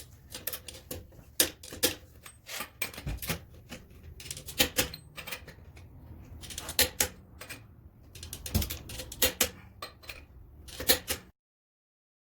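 Sharp clicks and taps of hand tools and parts being worked, coming in irregular quick runs. The sound cuts off abruptly near the end.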